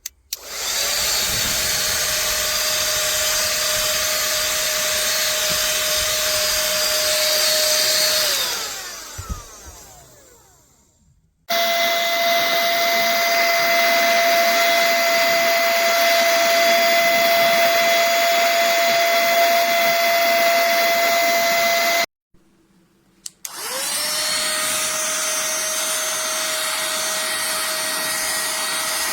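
Small cordless handheld vacuum cleaner's motor running with a steady whine. About eight seconds in it is switched off and spins down. It runs again for about ten seconds, then is switched on once more near the end and spins up to speed.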